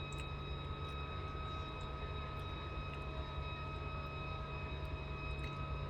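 Steady low hum of a car's engine and ventilation running while parked, heard from inside the cabin, with a few faint clicks over it.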